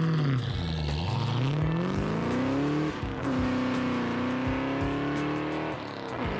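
Motorcycle engine under acceleration. Its revs climb steeply, drop sharply at a gear change about three seconds in, climb slowly again, then fall off near the end. Background music runs underneath.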